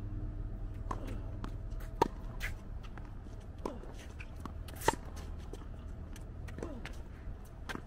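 Tennis ball strikes in a rally: a sharp pop about two seconds in, then the loudest crack about five seconds in as a flat backhand is hit near the microphone. Shoe scuffs on the hard court and a steady low rumble run underneath.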